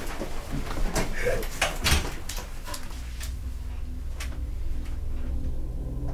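A scatter of short, sharp knocks and clicks. About three seconds in, a low, steady drone of background music fades in under them.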